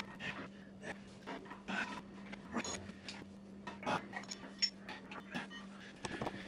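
Steel winch cable being hand-fed through its holders on a truck frame: scattered rubbing and scraping with light metal clinks, the loudest about four seconds in, over a steady low hum.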